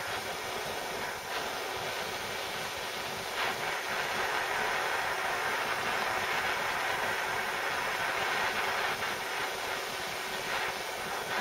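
Handheld gas blowtorch burning with a steady hiss, its flame heating a lead fishing weight held in pliers.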